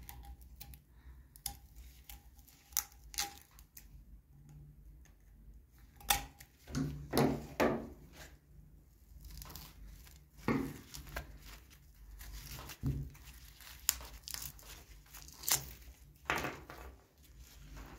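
Utility knife cutting and scraping at the old handle grip of a pair of rusty pliers, and the grip being torn loose and pulled off the handle: irregular scraping strokes and sharp clicks, with the loudest bouts about six, ten and sixteen seconds in.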